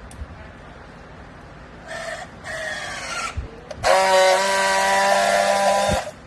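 Hydraulic used-clothes baler's pump whining under load: two short whines, then a loud steady whine for about two seconds that stops suddenly.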